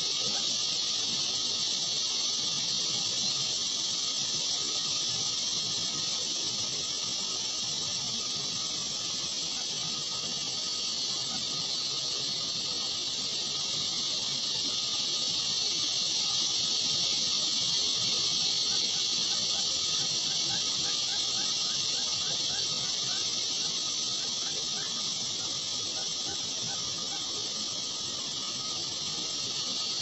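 Steady high-pitched hiss that runs unbroken at an even level.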